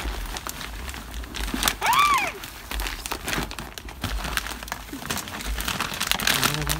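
A plastic garden-soil bag crinkling and crackling as it is tipped and soil is poured from it into plastic buckets. There is one short rising-and-falling tone about two seconds in.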